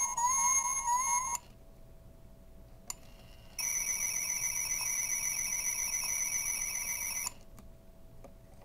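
Electronic sound effects from a Star Trek medical tricorder replica toy. A repeating warbling chirp cuts off about a second in, then a short click, then a higher, fast-warbling electronic tone plays for nearly four seconds.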